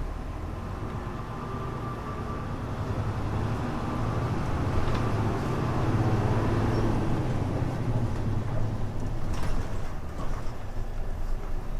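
Diesel engine of a Hino Blue Ribbon U-HU2MLAA city bus heard from inside the cabin, a muffled drone that grows louder and climbs a little in pitch as the bus pulls, then eases off about nine seconds in, with a brief sharp rattle or knock around then.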